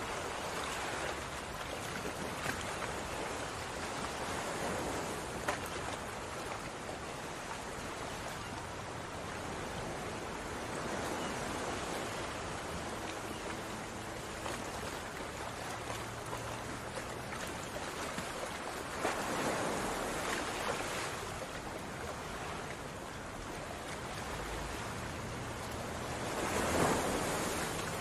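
Hot oil sizzling steadily as chopped onions fry in a pot, with the sizzle swelling louder twice, about two-thirds of the way through and near the end.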